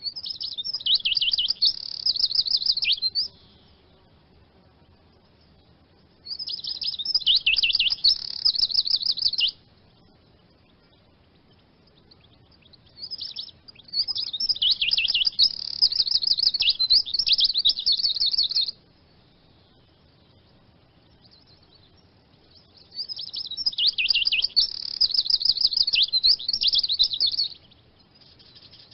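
Eurasian siskin singing: four bouts of fast, high twittering song, each lasting a few seconds, with short pauses between them.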